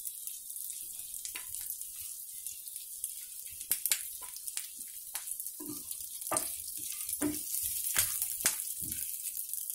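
Oil sizzling steadily in a nonstick pan as fish pieces and curry leaves shallow-fry, with scattered sharp clicks and scrapes of a spatula against the pan as the fish is lifted out, more of them from about halfway on.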